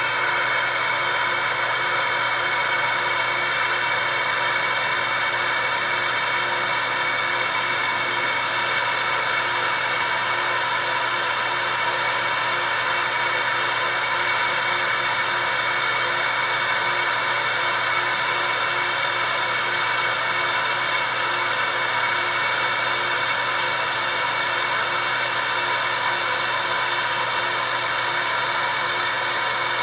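Laser engraving machine running while it engraves a ring held in a rotary chuck: a steady whirring hum with several fixed tones over a hiss, the hiss growing a little brighter about nine seconds in.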